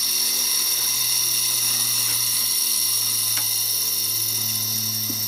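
Old Seagate hard drive's platters spun by a jet of compressed air. It gives a steady high-pitched whine over the hiss of the air, with a steady low hum underneath, easing off slightly near the end.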